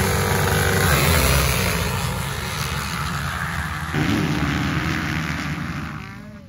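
A full gate of motocross bikes accelerating hard off the start line at full throttle, many engines running together. The sound fades over the last couple of seconds as the pack pulls away.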